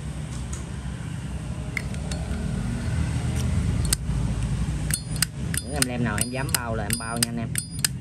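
Zippo lighter's hinged lid flicked open and snapped shut over and over: a fast run of sharp metallic clicks with a bright ring, about three or four a second, starting about five seconds in. Under it runs a steady low rumble.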